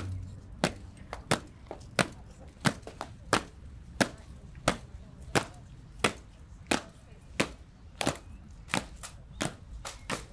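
Marching boots of a soldiers' honour guard striking stone paving in unison, a sharp crack about one and a half times a second. Near the end, extra strikes fall between the beats.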